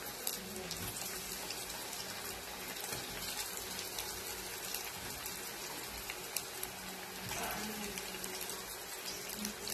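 Breaded eggplant sticks deep-frying in a pan of hot oil: a steady sizzle with scattered small crackles.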